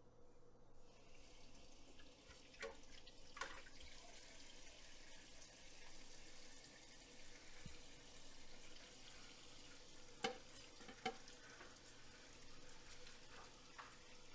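A kitchen tap running faintly into the sink during hand dishwashing, starting about a second in, with a few light knocks of dishes against each other, twice early on and twice near the ten-second mark.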